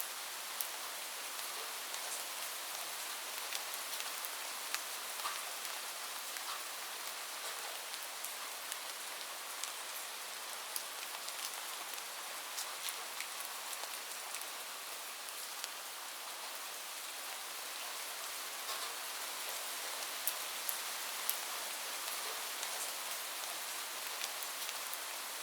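Heavy rain falling on a roof: a steady hiss with many scattered sharp ticks of single drops striking.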